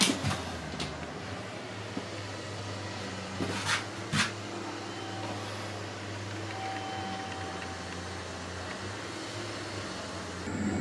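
A steady low hum with a few light knocks about four seconds in. Near the end, the rumble of an arriving train comes in.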